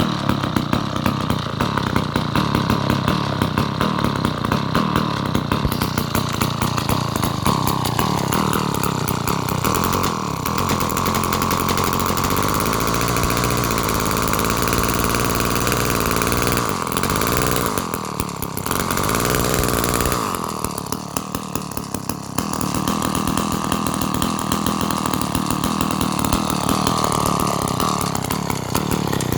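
Vintage Sears gear-drive two-stroke chainsaw running, its engine speed rising and falling. It eases off briefly twice past the middle, then picks back up.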